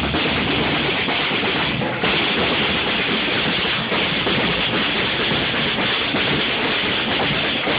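Live street band playing loudly and steadily, with drums to the fore.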